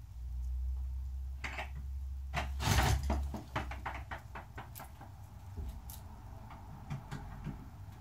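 A low rumble, then a run of sharp clicks and knocks, loudest about three seconds in and thinning to scattered clicks after that.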